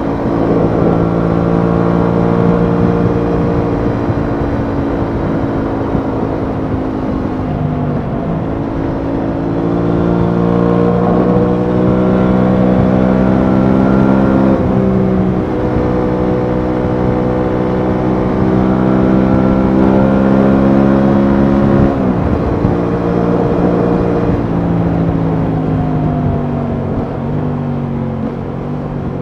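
Aprilia Tuono 660's parallel-twin engine running under way, its pitch climbing and falling with the throttle and dropping sharply twice, about halfway and about two-thirds through, before easing off near the end. Wind rushes over the rider's camera microphone underneath.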